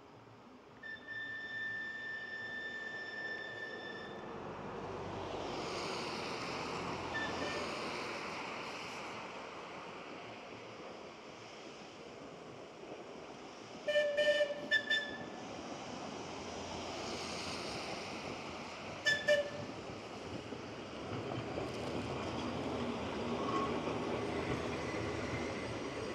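Manx Electric Railway tram running on its track and drawing closer. A long steady horn note sounds from about a second in for three seconds, then a quick burst of short toots about fourteen seconds in and two more around nineteen seconds. Under these, a rumble and rattle of wheels on rail grows loudest near the end.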